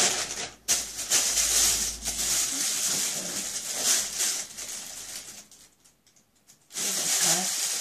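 Plastic packaging and bags crinkling and rustling as items are handled, dying away about five to six seconds in; a short burst of voice near the end.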